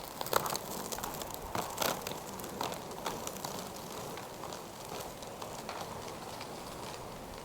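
Roller skate wheels rolling and knocking on a hard surface: several sharp clacks in the first three seconds, then a faint steady rolling hiss that slowly fades.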